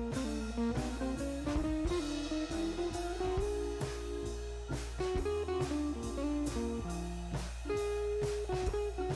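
Background music: a guitar-led instrumental with a drum kit keeping a steady beat.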